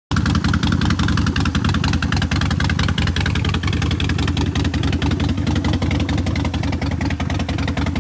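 A vehicle engine running steadily with a fast, even pulse.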